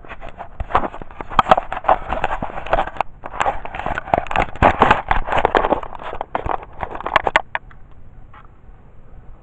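Camera handling noise: a dense run of crackles, scrapes and knocks as fingers and clothing rub over the microphone. It stops about seven and a half seconds in.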